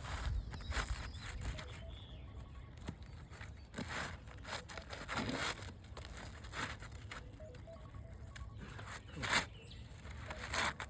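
Scraping and scuffing of asphalt shingles being worked into place on a roof: a handful of short, gritty scrapes at irregular intervals, with low wind rumble on the microphone.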